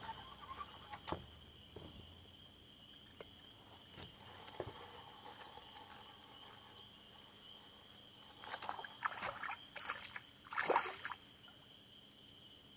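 Faint water splashing and sloshing at the surface as a hooked fish is brought in, with a cluster of splashes about two-thirds of the way through and a few light clicks earlier. A thin, steady high tone sits underneath.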